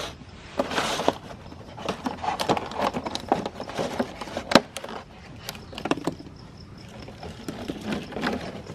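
A large crunchy cookie crunching and cracking as it is broken up in a meat grinder: irregular sharp cracks and crumbling, with short gritty bursts near the start.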